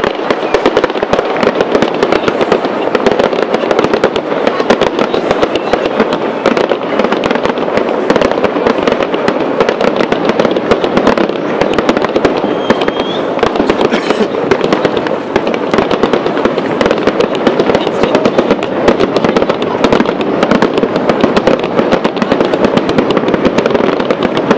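Fireworks display going off without a break: a dense crackle of many small bangs and pops from rising and bursting shells.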